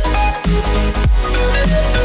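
Electronic dance music, dubstep style, with a heavy beat, deep bass drops that slide down in pitch, and a synth melody.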